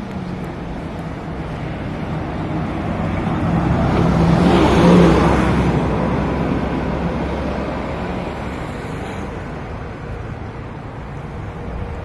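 A motor vehicle passing by on the road: engine and tyre noise swell gradually to a peak about five seconds in, then fade away, over a steady low engine hum.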